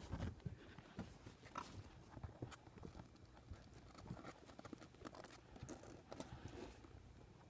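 Faint, scattered soft taps and rustles of very young kittens toddling on a carpet close to the camera, with a louder bump from the camera being handled at the start.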